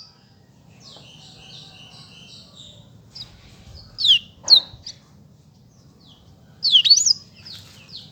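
Black-throated canary (blackthroat) singing. A faint buzzy trill runs through the first seconds, then short bursts of high, fast sweeping notes come about four seconds in and again near seven seconds.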